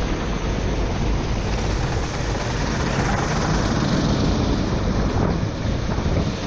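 Onboard sound of a four-stroke racing kart running at speed on a wet track. The engine is largely buried under steady wind buffeting on the microphone and the hiss of water spray off the tyres.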